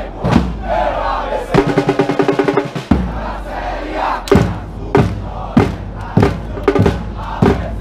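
Football supporters chanting and shouting together to a bass drum. About three seconds in, the drum settles into a steady beat of roughly one and a half strokes a second under the chant.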